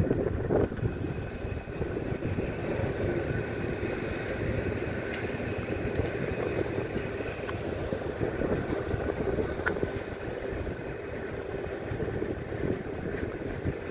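City street ambience: a steady low rumble of traffic, with no single event standing out.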